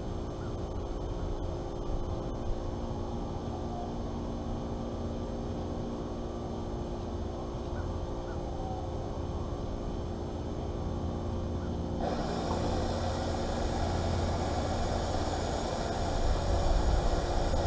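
Steady machinery hum with a low rumble. About twelve seconds in, a broader rushing noise joins it and grows louder toward the end.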